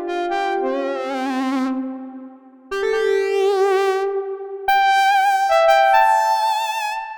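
Expressive E Osmose 49 synthesizer playing a slow run of held chords, each newly struck a second or two after the last. The held notes waver with a pronounced vibrato.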